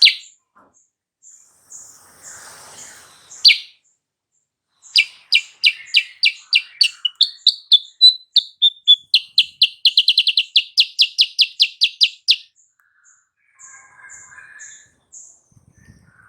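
Kutilang sutra songbird singing: a few sharp calls, then a long run of sharp, high repeated notes that speeds up into a rapid trill in the middle and stops abruptly. Softer scattered chirps follow near the end.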